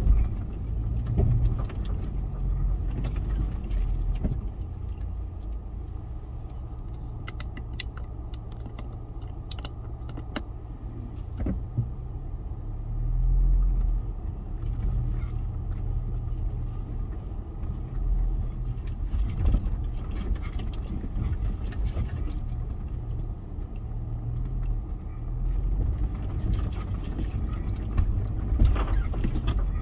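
Off-road 4x4 driving on a rough track: a steady low engine hum, with scattered clicks, knocks and rattles throughout.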